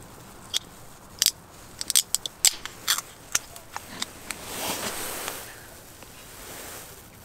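Small aluminium beer can being opened by hand: a run of sharp clicks and taps as a fingernail works and lifts the ring-pull, thickest about two seconds in, followed by a soft hiss about four and a half seconds in.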